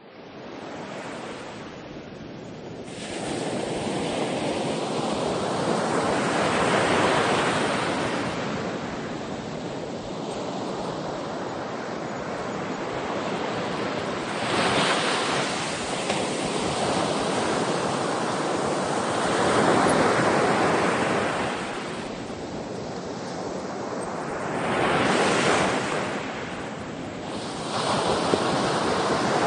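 Ocean surf: waves breaking and washing in, the rush swelling and falling back every few seconds.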